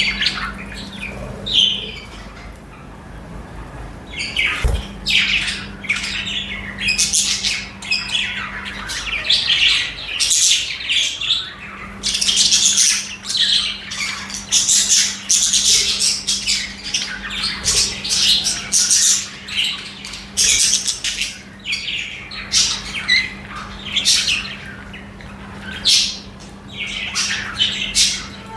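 Budgies (budgerigars) chirping, chattering and squawking in quick, overlapping bursts, sparser for the first few seconds, then busy. A faint steady low hum runs underneath.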